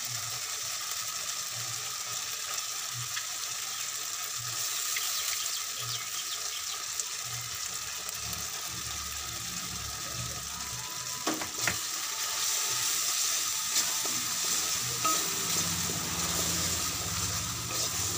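Whole spices and turmeric frying in hot oil in a metal kadai, a steady sizzle, with a wooden spatula stirring against the pan. A couple of sharp knocks come about two-thirds of the way through.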